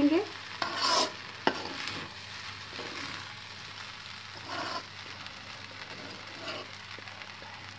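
A metal spatula stirs and scrapes rice in a kadai (wok) over a low, steady sizzle of frying. A few louder scrapes stand out, and a sharp clink of spatula on pan comes about a second and a half in.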